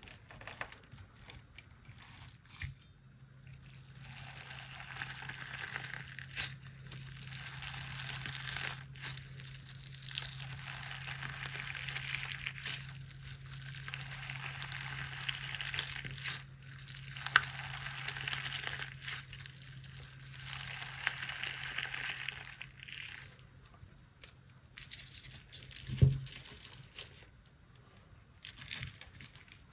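Crunchy slime being squeezed and kneaded by hand, crackling and crinkling in repeated squeezes of a second or two with short pauses between. A sharp click comes near the end.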